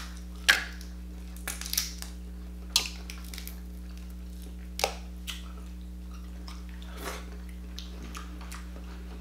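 Boiled seafood shells being cracked and picked apart by hand, with a sharp crack about half a second in and a scattering of smaller cracks and snaps after it, along with some chewing.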